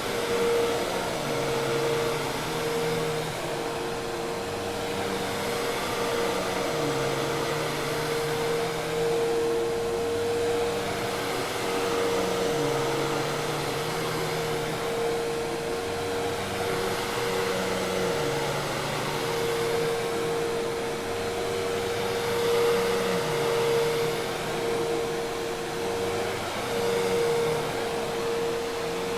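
Hoover Task Vac commercial vacuum cleaner running steadily: a constant motor whine over the rush of air, with no stop or start.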